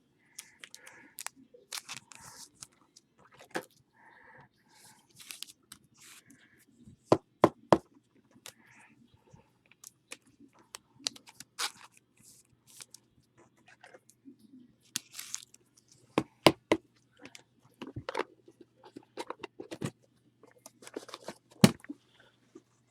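Trading cards and their plastic holders being handled: irregular sharp clicks, light scrapes and short crinkles of cards and plastic.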